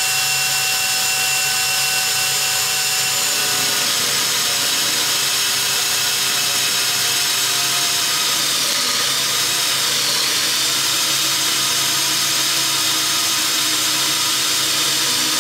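Metabo cordless drill running steadily, driving a hole saw through stainless steel pipe under a Snapdrill automatic-feed attachment. The motor's whine and the hiss of the saw cutting metal hold an even level throughout, with a slight wavering in pitch about halfway through.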